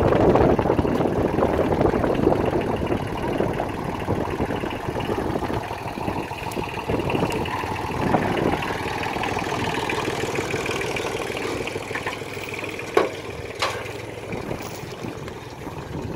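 Compact tractor engine running steadily, slowly getting quieter, with two sharp knocks about thirteen seconds in.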